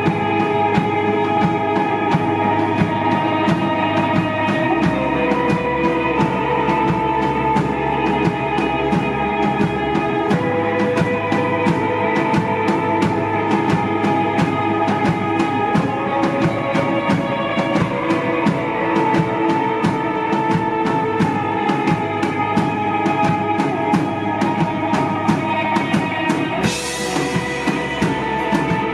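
Rock band playing live: electric guitar and bass sustaining notes over a steady drum-kit beat, with a cymbal crash near the end.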